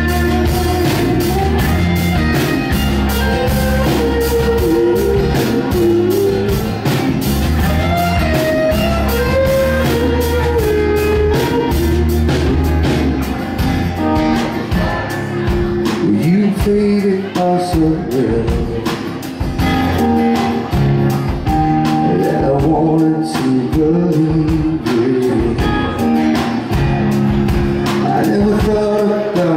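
Live rock band playing a song: electric and acoustic guitars, bass guitar and drums, with a man singing. The heavy bass and dense drumming ease off about halfway through, leaving a lighter accompaniment.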